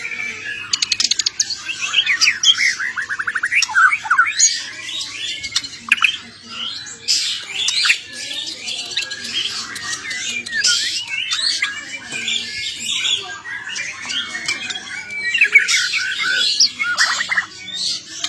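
Songbird singing a fast, varied song of chirps, trills and harsh chattering notes, without pause.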